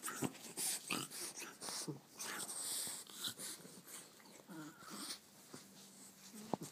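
French bulldog breathing noisily in a string of short huffs and snuffles, with a brief whimper around the middle.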